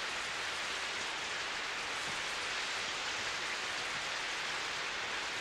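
Steady rain falling on a street, an even hiss with no breaks.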